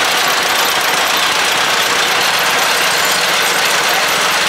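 Antique two-cylinder John Deere tractor engine running slowly as the tractor drives past, with small garden tractor engines following. The sound is steady, with no pause or sudden event.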